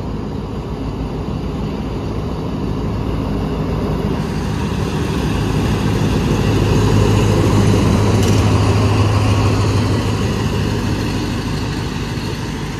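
Alsthom diesel-electric locomotive pulling a passenger train into the station. Its steady low engine drone swells as it comes alongside, loudest a little past halfway, then eases as the coaches roll past.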